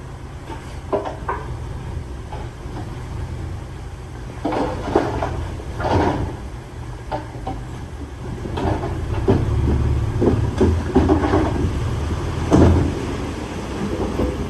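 Heavy diesel earthmoving machinery running with a steady low drone, overlaid by irregular clanks and scraping of stone and metal that grow louder and busier after the first few seconds, the loudest clank near the end.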